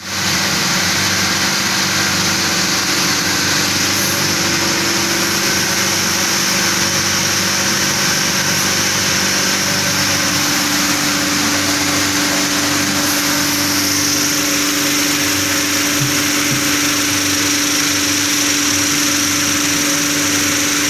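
A 120-litre vibratory bowl finishing machine running steadily. Its vibratory motor gives a constant low hum, under a continuous hiss from the media and parts churning in the bowl.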